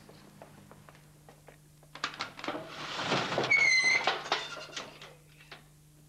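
Footsteps and knocks, then a door being pushed open with a short high hinge squeak about three and a half seconds in, over a low steady hum.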